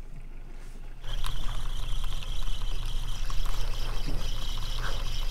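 From about a second in, a spinning reel is wound quickly on a fast lure retrieve, giving a steady high whine over water splashing and lapping.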